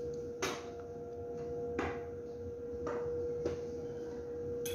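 A steady one-pitch hum in the background, with about five light clicks and taps from lab items being handled: a tube set down on the bench and a petri dish touched.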